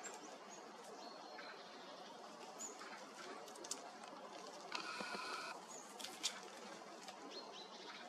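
Faint woodland birdsong: short high chirps, a drawn-out call about five seconds in, and a few sharp taps from a hooded crow pecking at peanuts on a wooden log.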